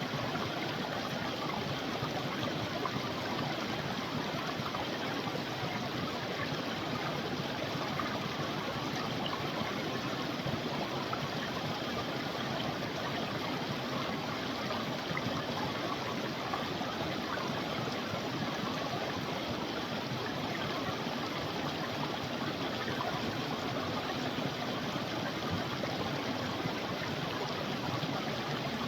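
A creek's water flowing steadily, an even rushing with no breaks.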